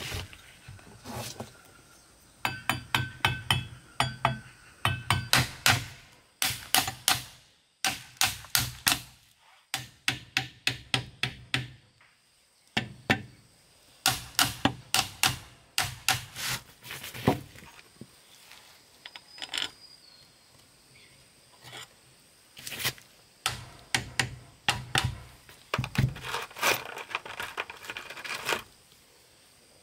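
Quick runs of sharp knocks, about four or five a second, separated by short pauses.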